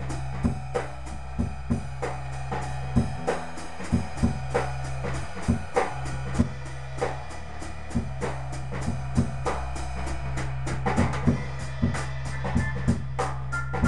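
Live jam music: a drum kit playing a steady groove of kick, snare and cymbal hits over sustained low bass notes that change every few seconds.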